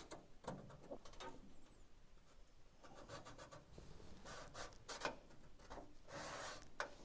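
Faint scratching and rubbing as a Sharpie marker is drawn along the underside of a sheet-metal patch panel to mark a cut line, with a few light clicks and taps.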